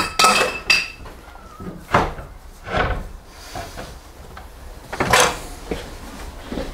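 Knocks and clatters, several in quick succession at the start with a short metallic ring, then single louder knocks about two, three and five seconds in.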